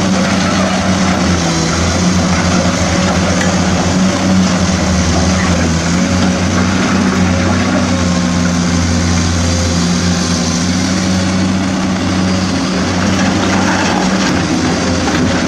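Steady, loud running of a truck's motor, with an unbroken low hum.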